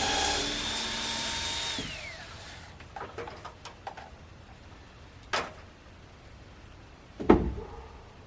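Power drill running steadily, then released and spinning down with a falling whine about two seconds in. A few light clicks and a sharp knock follow, then a heavy thump near the end.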